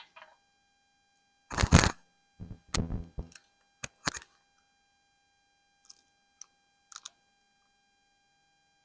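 A string of knocks and thumps, the loudest about one and a half seconds in, then a quick run of smaller knocks and a few light clicks near the end, over a faint steady electrical whine.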